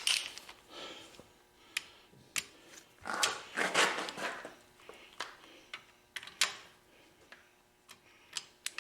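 Sharp clicks and metal clinks of a ratcheting torque wrench tightening compressor valve-cover bolts to 50 foot-pounds, with short scraping handling sounds between the clicks.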